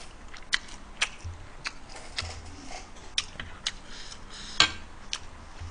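Irregular small clicks and smacks of someone eating close to the microphone, about a dozen spread through, the sharpest about four and a half seconds in.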